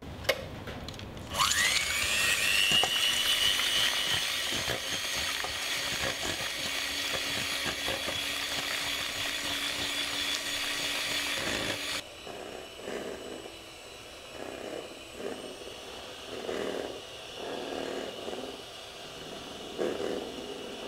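Electric hand mixer starting up with a quickly rising whine, then running steadily as its beaters whip egg whites and sugar toward a meringue in a stainless steel bowl. About two-thirds of the way through the sound drops suddenly and continues quieter and more uneven.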